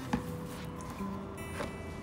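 Background music with held notes. Two light knocks of a cardboard gift box being opened and its insert lifted, one near the start and one late on.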